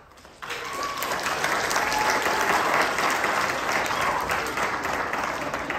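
Audience applauding, starting suddenly about half a second in and building to a steady clapping.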